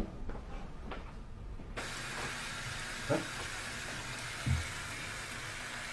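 Tap water running steadily into a plastic basin, starting abruptly about two seconds in, with two dull knocks partway through.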